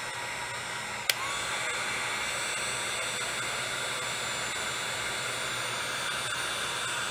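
Hot-air blower running steadily, a fan hiss with a high whine, heating heat-shrink tubing over a soldered butt connector. About a second in there is a click and it gets a little louder.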